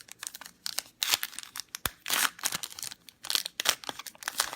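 A trading card pack's wrapper being torn open and crinkled, in a run of short, scratchy rips. There is a sharp click about two seconds in.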